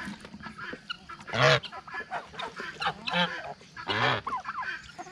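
Domestic geese honking, with two loud honks about a second and a half in and about four seconds in, and softer calls from the flock between and after them.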